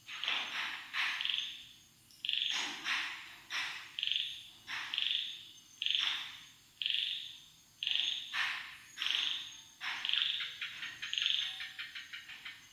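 An animal calling repeatedly: loud chirping calls about one to two a second, each starting sharply and fading. About ten seconds in, they break into a faster run of quick clicks that fades away.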